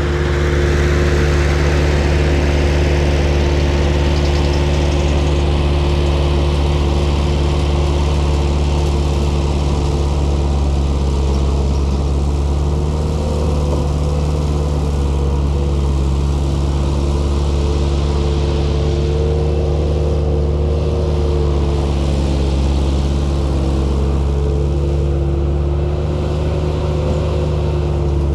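Heavy construction machine's engine running steadily at a constant speed, a low, even drone with no breaks.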